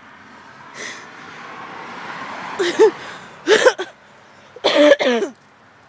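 A car passing on the nearby road, its noise building over a couple of seconds and then fading, with three short, loud vocal outbursts from a person about halfway through.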